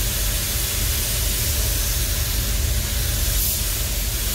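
Compressed-air paint spray gun hissing steadily while spraying, over the low rumble of the spray booth's ventilation. The hiss cuts off suddenly at the end as the trigger is released.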